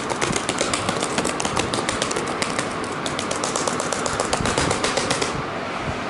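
Laptop keyboard keys tapped in a fast, rapid-fire run, about seven or eight clicks a second, over a steady hiss, stopping abruptly about five seconds in.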